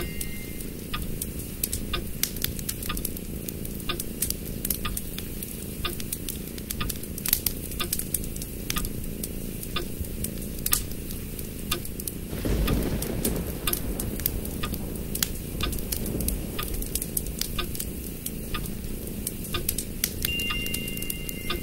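A sheet of origami paper rustling and crackling as fingers handle and crease it, a stream of irregular small crackles over a steady low background noise, with a louder rustle about twelve seconds in.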